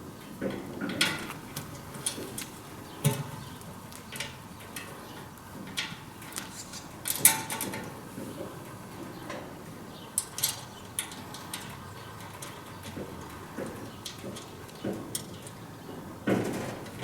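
Irregular metallic clinks and knocks of steel fan parts being handled and fitted together while a Vikhr-2000 grain heap aeration fan is assembled, the loudest knock about seven seconds in.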